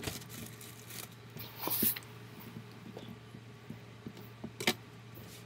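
A grilled cheese sandwich frying in a nonstick pan, giving faint scattered crackles and ticks, with two short hissing spurts, over a low steady hum.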